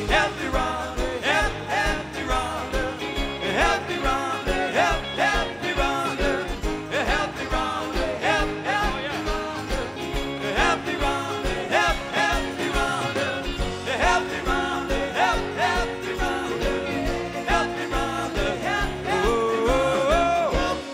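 Live rock band playing an upbeat song with a steady beat: electric guitars, keyboards and drums, with a tambourine shaken along.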